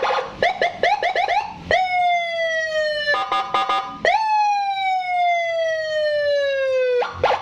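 Electronic police escort siren (Senken six-tone module through a 15-watt Toa horn speaker) stepping through its tones. First comes a quick run of short rising chirps. Then a long falling wail, a brief buzzing warble about three seconds in, a second long falling wail, and a quick rising chirp near the end.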